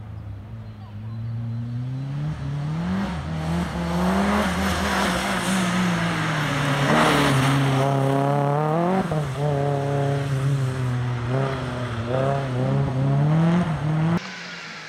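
Opel Astra turbo rally car's engine at speed, its revs climbing and dropping again and again as it is driven hard through the gears. The sound drops away suddenly near the end.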